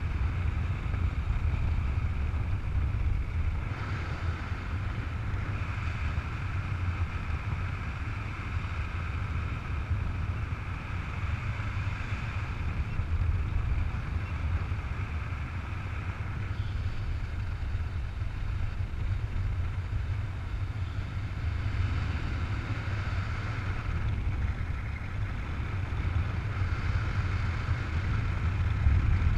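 Wind rushing over the camera microphone in paraglider flight: a steady low rumble with a hiss of airflow.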